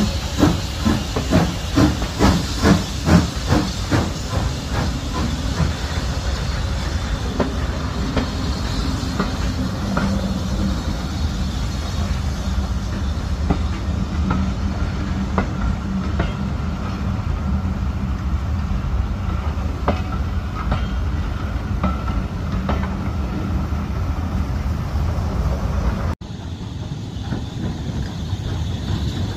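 BR Standard Class 4MT 4-6-0 steam locomotive 75014 Braveheart working a train with a hiss of steam and a rhythm of exhaust beats, about two to three a second, for the first few seconds. Then the coaches roll past with a steady rumble and scattered clicks of wheels over rail joints.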